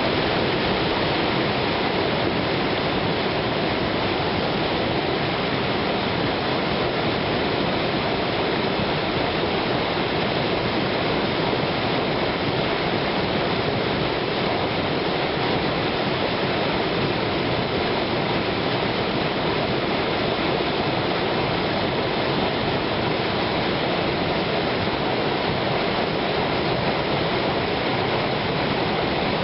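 River water rushing steadily and evenly below a waterfall.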